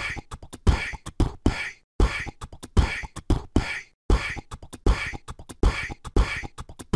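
End-screen music: a beatboxed rhythm of mouth-made kick and snare sounds, the same pattern repeating about every two seconds.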